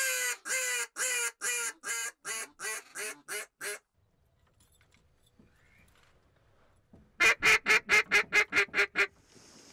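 Hand-blown duck call giving a descending series of quacks that get shorter and quicker, ending about four seconds in. After a short lull comes a louder, faster run of about ten quacks near the end.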